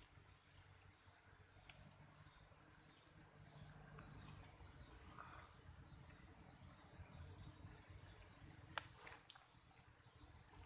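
A steady, high-pitched chorus of forest insects with a slight pulsing, and a couple of faint clicks near the end.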